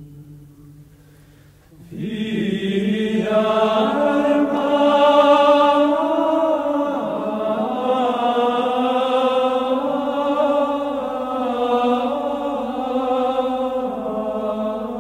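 Background music: a slow choral chant of long held notes. A louder phrase comes in about two seconds in, with higher voices joining a second later.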